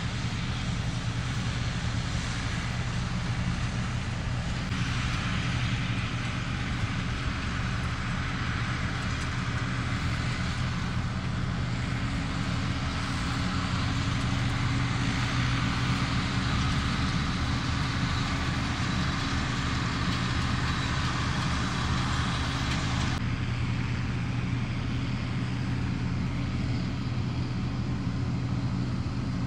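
John Deere tractor's diesel engine running steadily under load as it pulls a round baler through the windrows. A rushing noise from the working baler or wind grows louder about five seconds in and falls away again about twenty-three seconds in.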